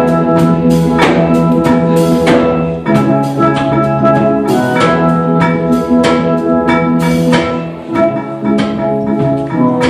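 Steel pan ensemble playing a tune: a quick stream of struck, ringing notes from the lead pans over lower held notes from the bass pans.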